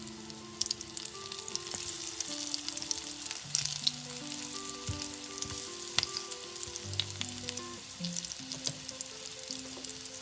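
Zucchini fritters sizzling and crackling in hot oil in a frying pan, with dense fine spatter. A couple of knocks near the middle as silicone spatulas turn the fritters over.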